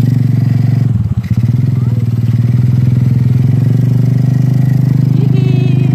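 Small motorcycle engine running steadily under way, with a brief dip and unevenness about a second in.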